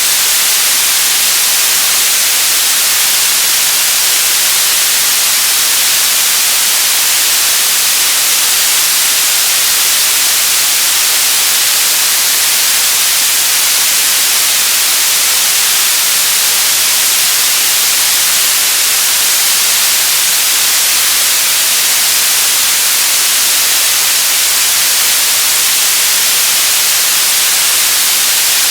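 Television static: steady, loud hiss of an untuned analogue TV, heaviest in the treble and unchanging.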